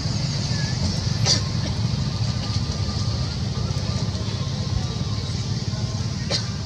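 Steady outdoor background noise: a low rumble under a constant high hiss, broken by two brief sharp sounds, one about a second in and one near the end.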